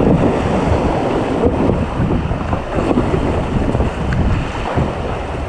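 River water rushing and splashing against a whitewater raft, with wind buffeting the action camera's microphone.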